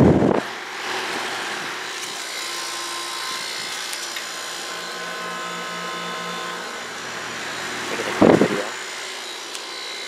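Goodman GSZ14 two-ton heat pump with a rotary compressor running in cool mode: the outdoor fan's steady rush with the compressor's hum and several faint steady tones over it. A brief loud burst of noise at the very start and again about eight seconds in.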